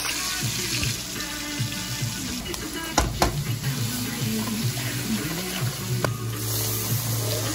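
Green sofrito and red sauce sizzling in hot oil in a stainless steel pan, a steady hiss, stirred with a metal spoon that knocks against the pan twice about three seconds in.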